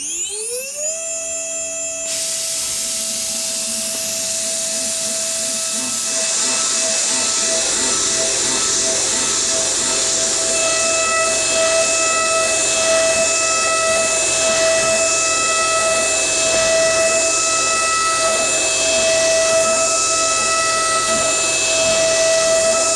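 CNC router spindle spinning up with a rising whine in the first second, then running at a steady high whine. A loud rushing noise joins about two seconds in and grows fuller a few seconds later.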